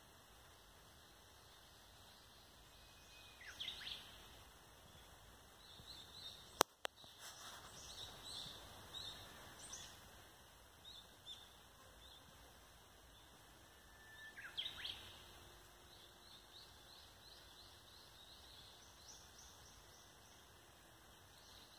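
Faint wild birds calling: a short falling call about three and a half seconds in, a scatter of quick chirps in the middle, and another falling call near fifteen seconds. A single sharp click a little after six seconds is the loudest sound.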